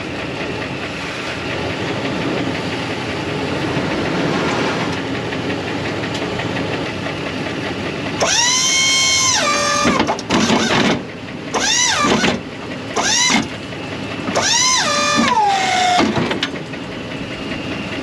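A truck engine runs steadily. About eight seconds in come five whining bursts from what is most likely the BOSS DXT plow's electric hydraulic pump motor; each rises and falls in pitch, and the first and longest steps down in pitch near its end.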